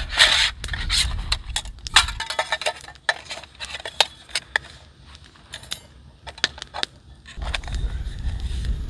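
Irregular light clicks and clinks of small camp gear and utensils being handled and set down on a small folding lap table. A low wind rumble on the microphone for the first couple of seconds and again near the end.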